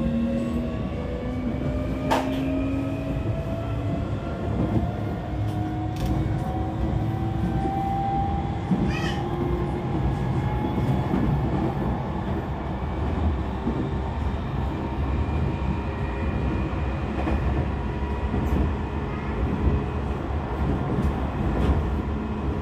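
Tokyo Metro 16000 series electric train running, its VVVF inverter and permanent-magnet traction motors whining in several tones that rise in pitch over the first ten seconds or so as it picks up speed, then hold steady. Under it a steady rolling rumble from wheels on rail, with a few sharp clicks.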